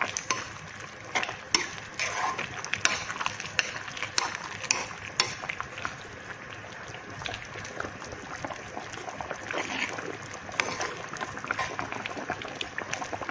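Metal ladle clinking and scraping against a wok while stirring a soupy squash sauté. There are frequent sharp clicks in the first five seconds or so, then softer, steadier stirring with only occasional taps.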